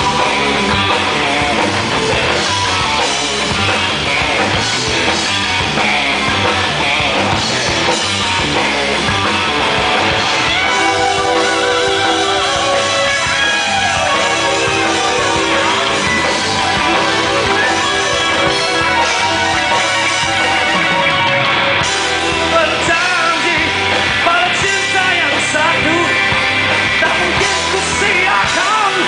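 Live rock band playing: distorted electric guitar, bass and drum kit, with a male lead singer.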